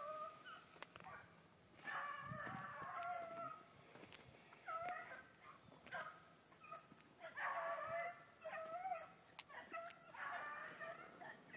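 Pack of beagles baying faintly as they run a rabbit's scent trail, their voices rising and falling in bouts of a second or two with short pauses between.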